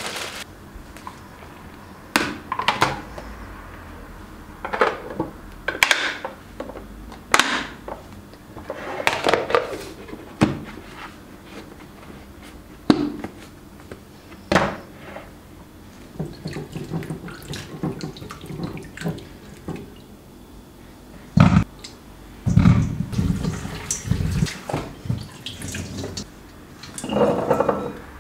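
Kitchen handling sounds with some water: scattered knocks, clicks and brushing noises, with a cluster of heavier low thuds a little past the middle.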